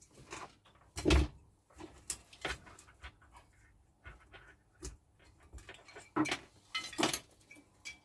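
Irregular knocks, clicks and rustles of hands working on a picture tube and its deflection coil wiring on a workbench. The loudest is a thud about a second in, and sharper knocks come near the end.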